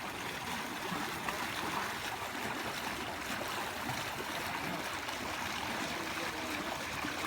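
Stream water flowing steadily, a continuous rushing and trickling.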